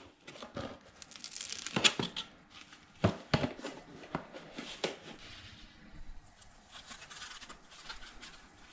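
Sanding discs being handled: a cardboard abrasives box and its packaging rustling and crinkling, with a few sharp clicks and knocks as a disc is taken out and fitted to the sander pad.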